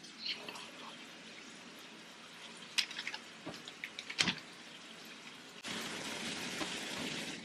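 Kitchen tap running into a sink, with a couple of sharp knocks of utensils or dishes partway through; the water gets louder suddenly a little before the end.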